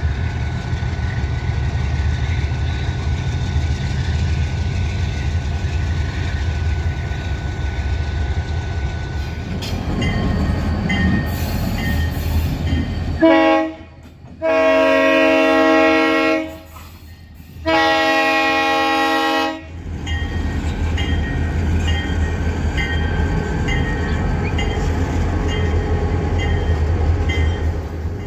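Diesel freight locomotive running, then its multi-chime air horn sounds a short blast followed by two long ones about halfway through. Afterwards the train rolls by with its wheels clicking over the rail joints.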